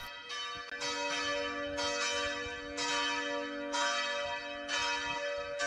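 Church bells ringing, a fresh stroke about once a second, each stroke ringing on into the next over a steady low hum.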